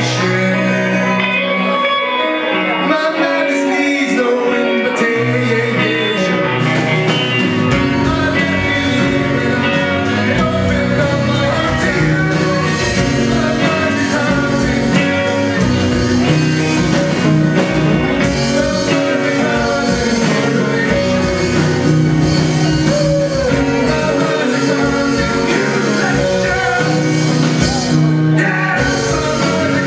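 Rock band playing live on electric guitars, bass and drum kit. The first several seconds are sparser, with bass and guitar notes, then the full kit with cymbals comes in about seven seconds in and the band plays on at full volume.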